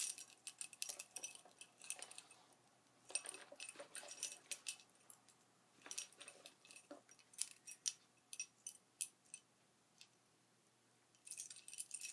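Metal spinnerbait blades and wire arms jingling and clinking as the lure is handled, in irregular bursts of light metallic ringing with short pauses between.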